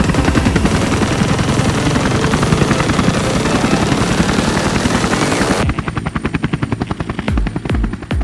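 Loud, rapidly pulsing rotor noise of a filming aircraft. It cuts off suddenly about six seconds in, and electronic music with a steady kick-drum beat takes over.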